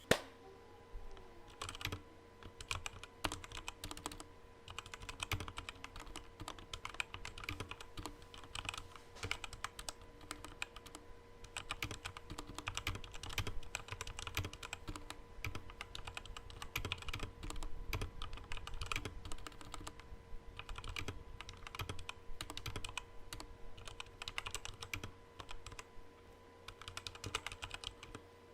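Continuous typing on a Redragon K617 Fizz mechanical keyboard with a plastic case: a dense, irregular run of key clicks with a few brief pauses.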